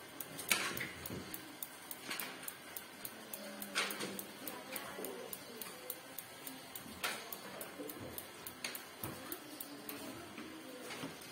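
Electronic spark igniter of a Modena built-in gas hob ticking rapidly and evenly, with a louder sharp click every second or few. No flame catches: the burner is not lighting.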